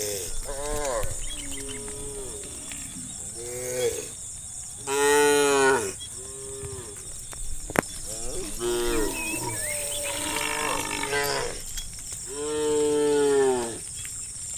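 Several cattle mooing one after another, some calls overlapping, with the loudest two moos about five seconds in and near the end. There is a single sharp click just before eight seconds in, over a faint steady high hiss.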